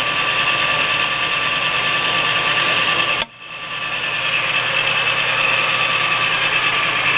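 Geared-head metal lathe running at slow forward speed, a steady mechanical hum with a gear whine. About three seconds in the sound drops out sharply and comes back over roughly half a second.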